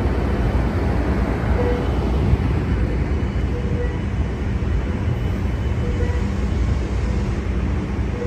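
Siemens Charger diesel locomotive of a Capitol Corridor train idling at the platform, a steady low engine rumble.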